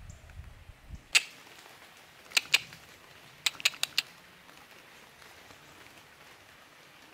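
Several sharp, short clicks: one, then a quick pair, then a quick run of four, over a faint steady hiss, with a low rumble in the first second.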